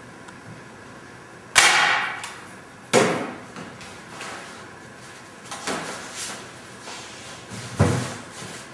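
Staple gun firing staples through canvas into a wooden stretcher bar: two sharp snaps about a second and a half apart. Softer handling knocks follow, then a deeper thump near the end.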